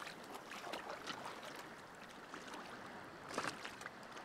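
Shallow lake water sloshing and splashing lightly around an angler's hands and waders as a fish is released, with a sharper splash about three and a half seconds in.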